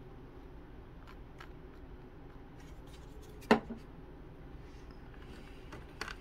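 Quiet handling of small thin plywood model parts: a few faint clicks, one sharp tap about halfway through, and small clicks near the end as a laser-cut bulkhead is pressed into the slots of the frame.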